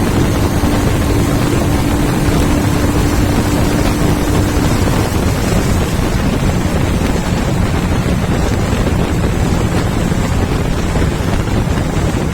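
Heavy wind rushing over the microphone of a Royal Enfield Himalayan ridden hard at high speed, with the bike's single-cylinder engine running under it. A steady tone in the mix drops away about five seconds in.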